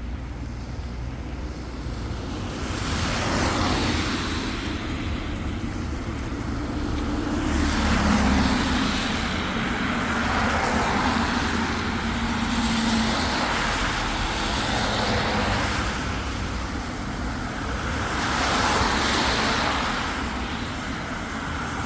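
Road traffic: several cars passing one after another, each swelling and fading, with a low engine hum during the middle pass.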